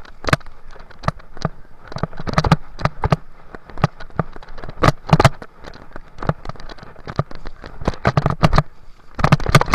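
Mountain bike ridden fast down a rough dirt trail, rattling and knocking over the bumps: irregular sharp clacks, several a second at times, over a low rumble, with the densest clatter around the middle and again near the end.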